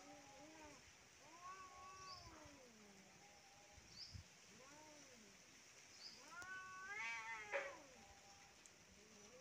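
Two domestic cats yowling at each other in a standoff: a series of long, drawn-out wails that rise and fall in pitch. The loudest and most wavering comes about seven seconds in.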